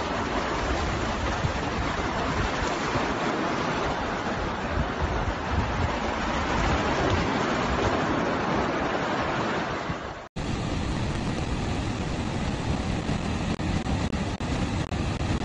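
Muddy floodwater rushing fast down a narrow street, a steady churning rush of water. About ten seconds in it cuts abruptly to another steady rush of water, from a dam discharging through its spillways.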